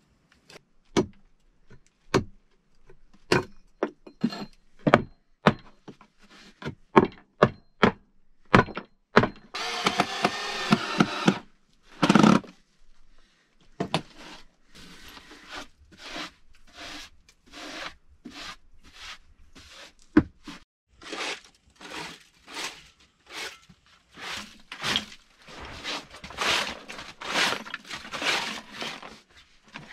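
A series of sharp knocks and clunks, as of wood being handled, with a brief hissing rush about ten seconds in and a heavy thud right after. After that come quicker, softer strokes, a bit more than one a second.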